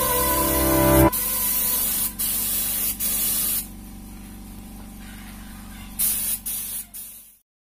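Compressed-air paint spray gun hissing as it sprays paint onto a motorcycle wheel rim, in stretches with short breaks. It stops for a couple of seconds midway, sprays again briefly, then the sound cuts off suddenly near the end. Background music plays for about the first second.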